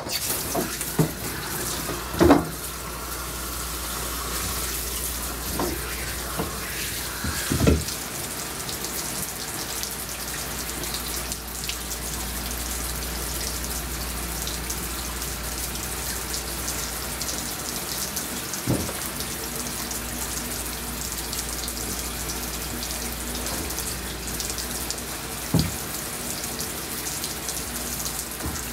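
Water spraying steadily from a handheld hose sprayer onto a dog's coat and into a tub, with a few short knocks.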